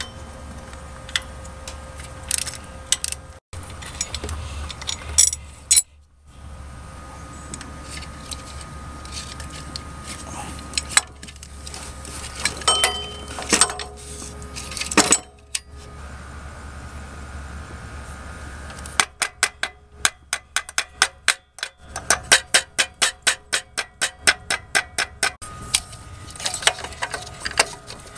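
Socket ratchet and hand tools on engine bolts: scattered metal clinks and knocks, then from about two-thirds of the way in a ratchet clicking in fast even runs of several clicks a second, with a short pause between two runs.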